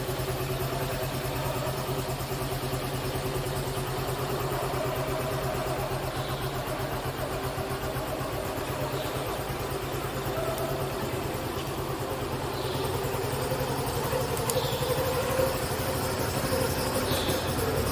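Motorcycle engine idling with a steady, even beat, then getting a little louder about two-thirds of the way through as the bike rides off, in a concrete underground car park.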